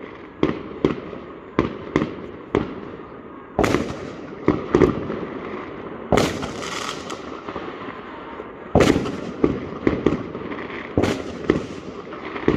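Fireworks going off: an irregular string of sharp bangs, some fifteen of them, each followed by an echoing tail, with a crackling hiss about six seconds in.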